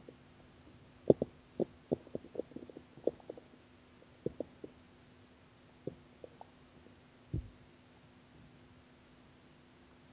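Hungry stomach growling: a quick run of short gurgles and pops starting about a second in, then a few scattered gurgles, and one deeper, longer rumble past the middle.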